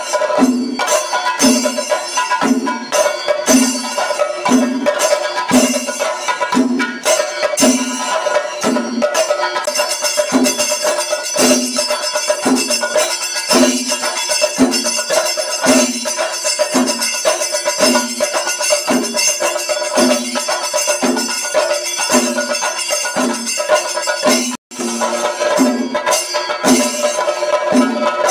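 Percussion-led traditional music: a steady low drum beat a little faster than once a second, with jingling metal percussion and held tones over it. It cuts out for an instant near the end.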